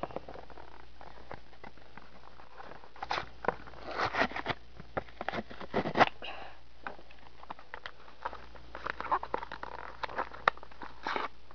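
Foil booster-pack wrapper crinkling and crackling in the hands, in irregular clusters of small crisp clicks that are densest in the middle and near the end.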